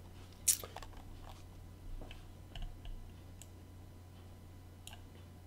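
A few scattered clicks from a computer keyboard and mouse, the sharpest about half a second in, over a faint steady low hum.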